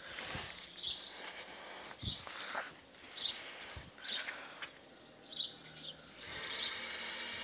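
Footsteps on concrete with birds chirping, then about six seconds in a steady rushing hiss starts and holds: water running from the garden tap through the hose as the water balloon begins to fill.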